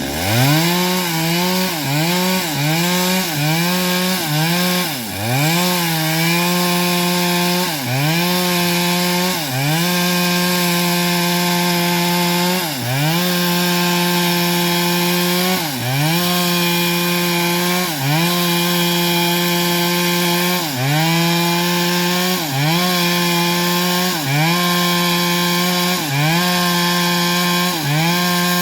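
Small petrol engine of a homemade engine-driven saw running at high speed while ripping old teak. Its pitch sags briefly and recovers every one to three seconds as the cut loads it, with quicker sags near the start and the end.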